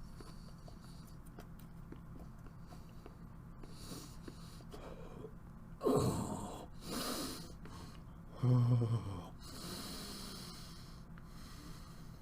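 A man breathing hard and groaning while forcing down a mouthful of foul-tasting century egg: sharp breaths about halfway through, a short low groan about two-thirds in, then a long exhale.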